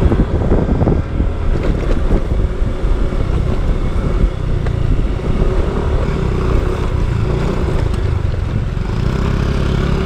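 Motorbike riding along a rough trail, its engine running under a heavy, uneven rumble of wind buffeting the microphone.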